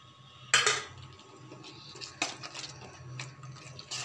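Spatula stirring thick tomato chutney in a nonstick pan: wet, sticky sounds of the paste with irregular scrapes against the pan, the loudest about half a second in and another just after two seconds.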